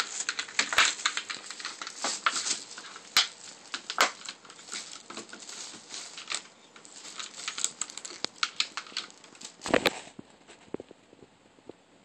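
Tissue paper crinkling and a plastic water bottle tapping as a cat paws at them: a dense run of rustles and sharp clicks that dies down after about ten seconds.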